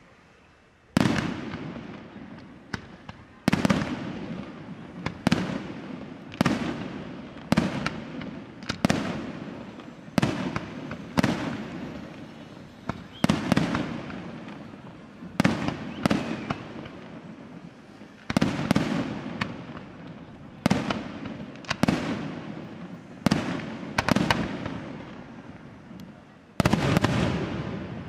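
Aerial fireworks shells bursting one after another, a loud bang about every second, each with a long echoing tail. About a second of quiet comes before the first bang.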